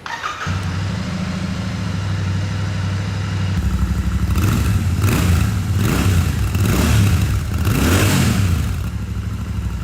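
Royal Enfield Shotgun 650's 648 cc parallel-twin engine starting up and idling, then blipped up in several throttle revs about halfway through before settling back to idle.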